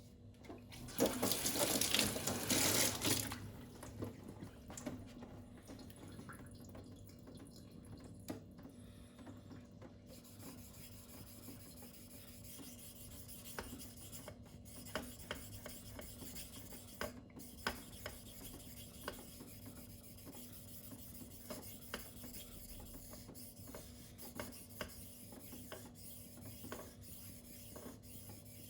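Spyderco Tenacious 8Cr13MoV steel blade being stroked across a wet silicon carbide whetstone in freehand sharpening, a quiet scraping with small ticks. Near the start there is a louder rush of noise lasting about two seconds.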